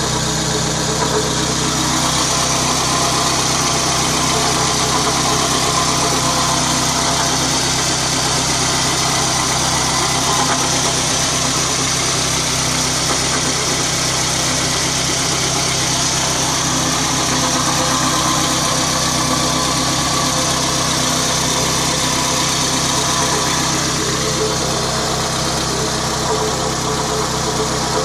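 Car engine idling steadily, with a steady whirring noise from the front of the engine that the owner suspects comes from a failing water pump.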